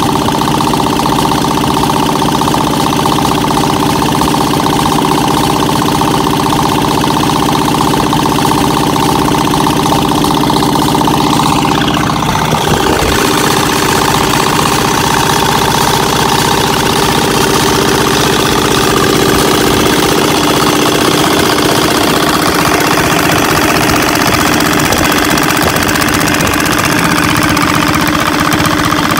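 Yamma 12 hp single-cylinder air-cooled diesel engine running steadily with a knocking diesel beat. Its note dips about twelve seconds in, then settles.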